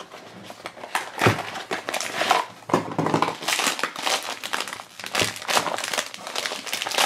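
Foil blind-box bag crinkling and crackling in the hands as it is handled and opened, in a dense irregular stream.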